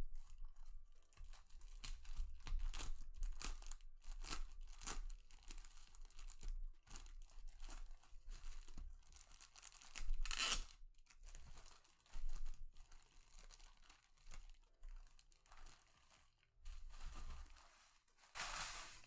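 Clear plastic protector bag crinkling and rustling in short bursts as hands work it open and slide a cloth dust bag out of it, with a louder rustle about ten seconds in and another near the end.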